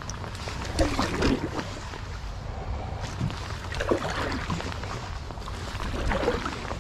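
Wooden canoe paddle stroking through calm creek water: three swishing, splashing strokes a couple of seconds apart.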